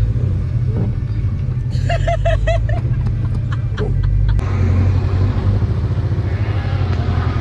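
A loud, steady low rumble, with a quick run of five short high-pitched sounds about two seconds in; the sound changes abruptly, as at a cut, about four and a half seconds in.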